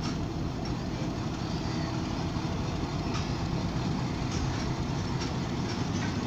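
Pakistan Railways passenger coaches rolling past a platform as an express train pulls out of the station. It is a steady low rumble of steel wheels on rail, with scattered faint clicks.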